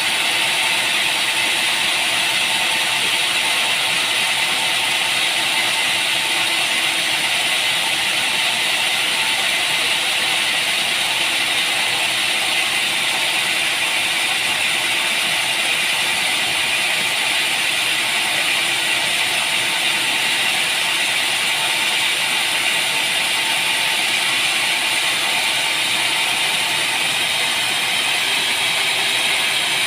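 Sawmill machinery running steadily, an even, unbroken mechanical noise.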